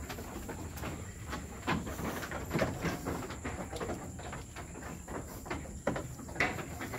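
Sheep and a Garut ram moving about at wooden feeding pens, making irregular knocks and scuffs. A few louder knocks come about two and a half and six seconds in.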